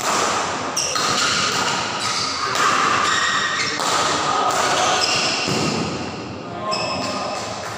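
Badminton doubles rally: rackets hitting the shuttlecock again and again, with players' feet thudding on the court. Spectators' voices run underneath.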